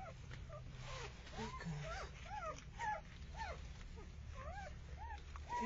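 Newborn Saint Bernard puppies whimpering: a dozen or so short, high squeaks that rise and fall, coming in quick succession and sometimes overlapping.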